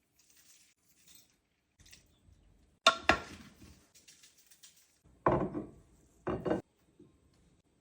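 Kitchen utensil sounds: a sharp double knock about three seconds in, then two short scraping, clattering noises near the end.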